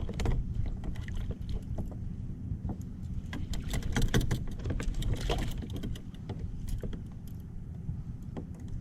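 Kayak on open water: a steady low rumble of wind and water on the camera, with a run of small clicks and rattles from gear being handled around the middle.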